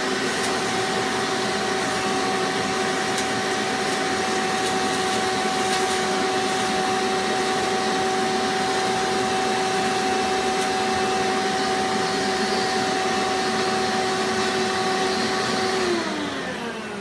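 Hoover Legacy U5072-930 upright vacuum cleaner running with a steady whine, then switched off near the end, the motor's pitch falling as it winds down.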